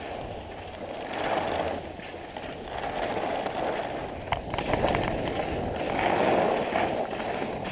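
Skis sliding and scraping over firm groomed snow at speed, the noise swelling and fading through the turns, with a few sharp clicks about four and a half seconds in.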